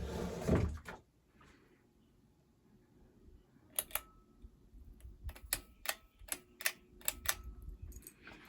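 A short burst of handling noise at the start, then a run of sharp, irregular clicks, about a dozen over four seconds.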